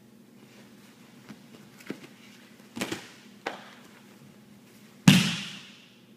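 Grapplers' bodies hitting a foam training mat during a jiu-jitsu sweep: a few soft thuds, then one loud thump about five seconds in as the sweep brings a man down onto the mat, fading over about a second.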